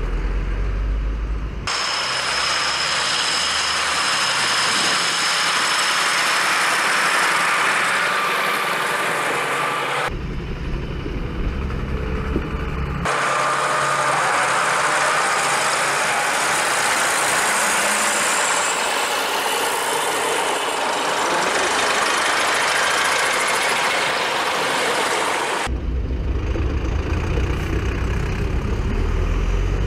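Diesel tractor engines running as tractors drive past one after another. The sound switches abruptly several times between a deep low rumble and a brighter, hissy engine noise.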